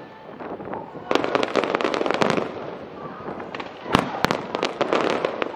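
Aerial fireworks display: shells and crackling effects bursting in rapid clusters of sharp cracks, with a quieter lull about three seconds in, then a louder bang about four seconds in followed by more crackling.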